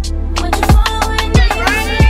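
Background music: a hip-hop beat with deep bass kicks that drop in pitch, about one every two-thirds of a second, over a sustained low bass and a melody.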